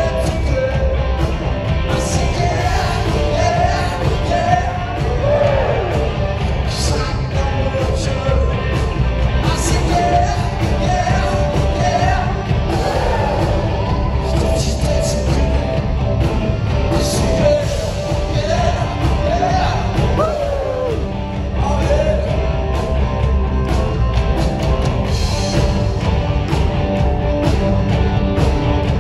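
Live rock band playing: a lead singer over electric guitar, bass and drum kit, heard from the audience.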